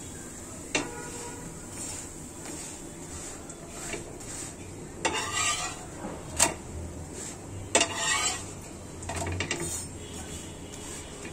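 Nimki frying in hot oil with a steady sizzle, while a metal utensil knocks and scrapes against the pan several times, loudest in the second half.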